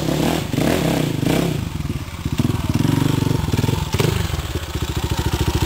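Motorcycle engine running with a pulsing exhaust beat. Its pitch shifts in the first second or so, then it settles into a steady, rapid pulse.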